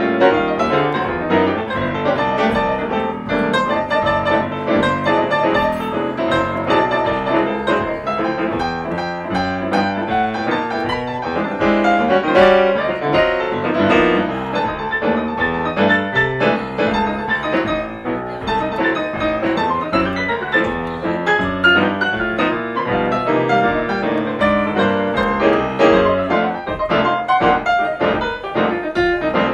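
Jazz piano duo on two grand pianos, a busy, unbroken stream of notes and chords.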